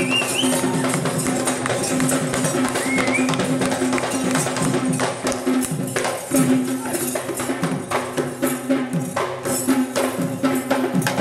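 Kandyan drums (geta bera barrel drums) beaten in a fast, dense dance rhythm, with a steady held tone underneath.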